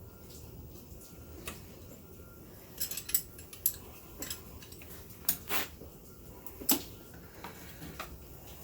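Metal hand tools and engine parts clinking and knocking against each other during an engine teardown: a scatter of sharp metallic clicks, the loudest few in the middle.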